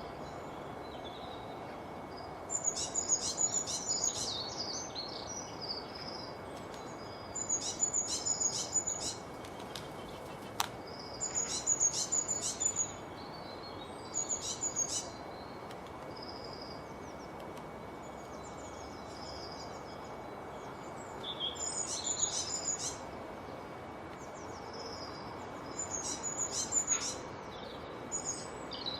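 Songbird singing about six short phrases of rapid, high chirping notes, a few seconds apart, over a steady background hiss. A single sharp click comes about ten seconds in.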